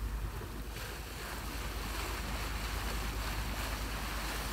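Water rushing and splashing along the hull of a sailboat moving under sail with its engines shut off, with wind on the microphone adding a steady low rumble.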